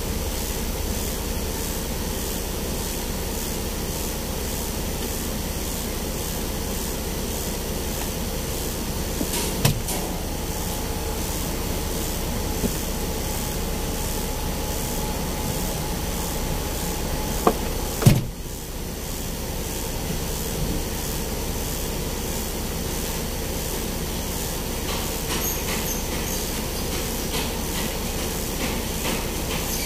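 Stationary vehicle idling, heard from inside the cab: a steady low engine rumble under a constant hiss. Two sharp knocks, about ten seconds in and again near eighteen seconds.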